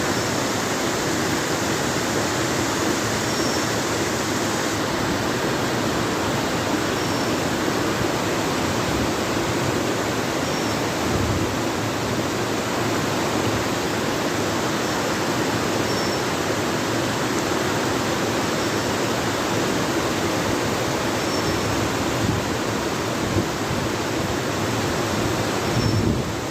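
Waterfall: water falling and splashing in a loud, steady rush.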